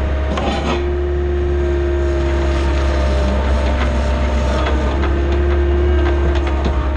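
John Deere skid steer's diesel engine running steadily, with short metallic clanks and rattles from the machine throughout.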